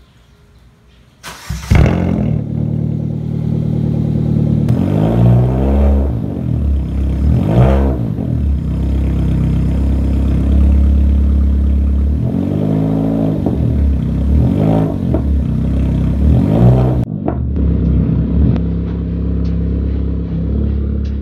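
Ford Fiesta Mk7 engine heard through an HKS muffler. It starts about a second and a half in, settles to a steady idle, and is revved in several short blips that rise and fall in pitch. Near the end it settles back to idle.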